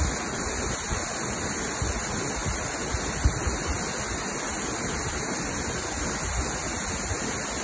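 Waterfall pouring, a steady, even rush of white water.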